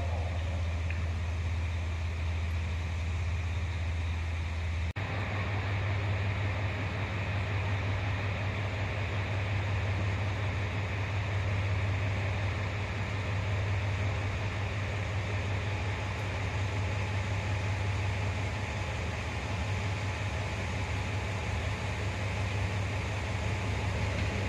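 Diesel railcar engine idling steadily, a low hum under a constant hiss, with an abrupt change in the sound about five seconds in.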